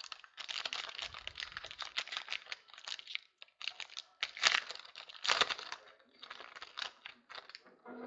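Plastic wrapping on trading card packaging crinkling and tearing as it is handled and opened, a dense run of fast crackles with a couple of louder rips about halfway through.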